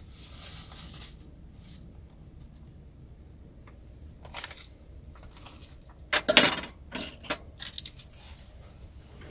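Kitchenware being handled: faint rustling of a paper bag of crisp mix, then a loud clatter about six seconds in and a few light clinks, like a bowl being set down and utensils knocking together.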